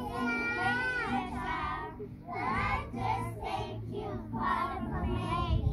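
Young children singing a song, in phrases of held and bending notes, with a short break about two seconds in.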